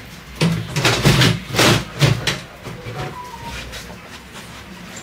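A sticky drawer scraping and rattling in several harsh bursts over about two seconds.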